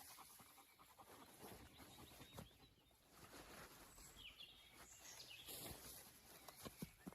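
Near silence: faint outdoor ambience, with a few faint high chirps about halfway through and scattered light clicks.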